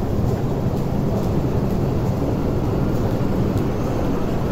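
MTR metro train running along the platform behind the platform screen doors as it pulls out, a steady low noise.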